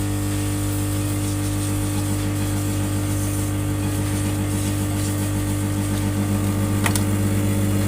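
Hot-air rework gun blowing steadily on a washed phone circuit board to dry it: a steady low hum under an airy hiss. A short click about seven seconds in.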